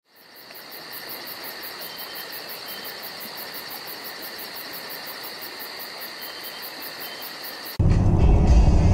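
Insects chirping in a steady chorus: a fast, even pulsing of about five a second over steady high trills. About eight seconds in it cuts abruptly to much louder, low rumbling sound from inside a moving car.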